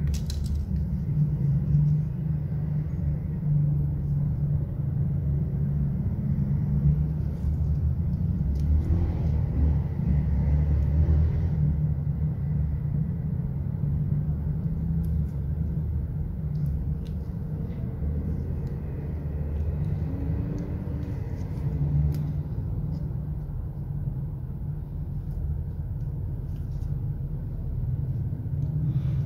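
Steady low mechanical hum, with a few faint small clicks from handling small parts.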